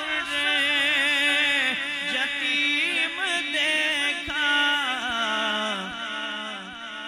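A man chanting a naat unaccompanied, drawing out a long wavering, ornamented note over a steady held drone, fading somewhat near the end.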